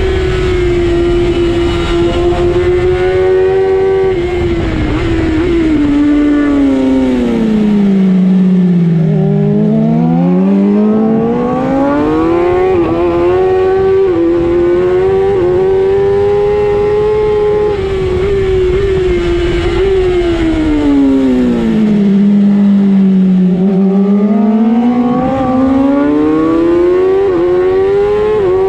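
Racing motorcycle engine at high revs heard from onboard, its note held high for long stretches. Twice, about eight and twenty-two seconds in, the pitch falls steadily as the bike slows, then climbs again under acceleration.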